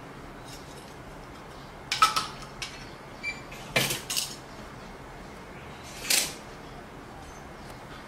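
Small tools and metal parts clinking and clattering as they are handled on a tabletop, in short bursts about two, four and six seconds in.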